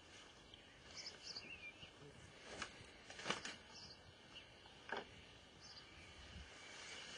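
Quiet garden ambience with a few faint bird chirps. A handful of short, sharp clicks or rustles come from close by, about two and a half, three and a half, and five seconds in.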